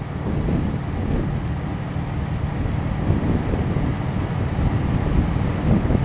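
Wind buffeting the microphone: a steady, gusty low rumble with no clear pitch.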